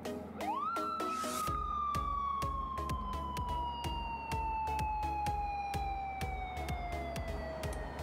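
High-pitched siren of a new-model Honda CB1300P police motorcycle: it rises quickly about half a second in, then holds one long wail that slowly falls in pitch. Background music with a steady beat plays under it.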